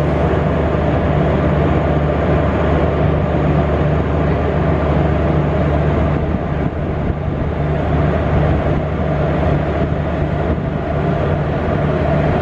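Train running on the track: a steady, loud rumble that holds evenly throughout.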